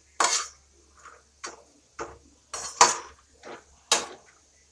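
Steel ladle scraping and knocking against a stainless steel pan while stirring and roasting lumps in a little oil, in about eight irregular strokes, roughly two a second.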